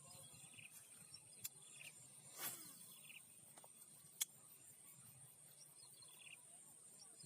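Faint insects chirring, a steady high-pitched drone, with faint repeated chirps over it. A short swish comes about two and a half seconds in and a single sharp click about four seconds in.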